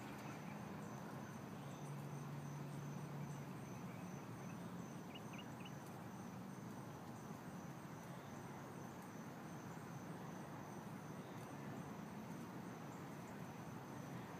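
Faint, steady outdoor ambience: an even hiss with a thin, continuous high-pitched insect drone, and a few tiny chirps about five seconds in.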